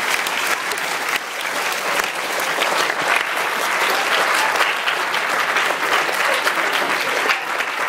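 A room full of students applauding: many hands clapping at once in a dense, steady patter.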